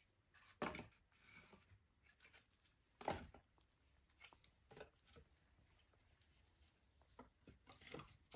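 Split firewood sticks being set and knocked onto a stacked pile: a series of irregular, dry wooden clacks, the loudest about three seconds in.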